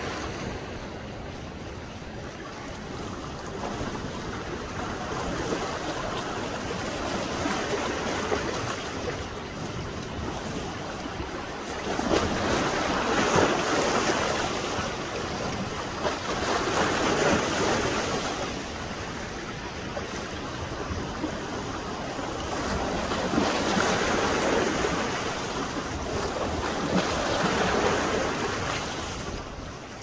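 Rough surf breaking and washing up a sandy beach, swelling and fading every few seconds, louder in the second half.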